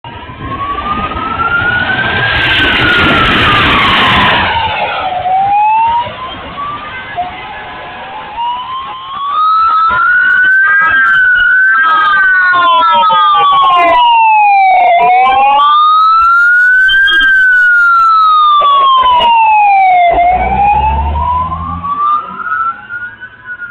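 Police car sirens wailing, each rising and falling slowly over about five seconds, with two sirens overlapping for a while in the middle. A loud rush of noise covers the first four seconds, and a low engine rumble comes in briefly near the end.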